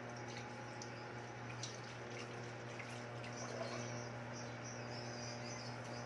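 Fish sinigang soup simmering in a covered stainless-steel pot, with scattered small bubbling pops and ticks over a steady low electrical hum from the hotplate.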